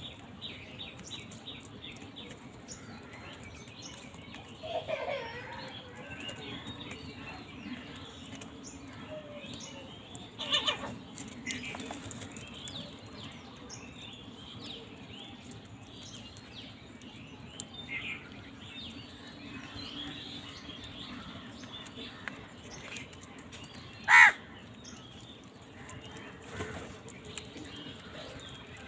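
House crows cawing now and then as a flock feeds on scraps, several separate calls with one short, loud caw late on.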